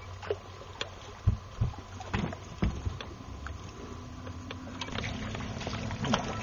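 Several dull thumps and a few light clicks from movement aboard a fishing boat, with a low steady hum coming in about four seconds in.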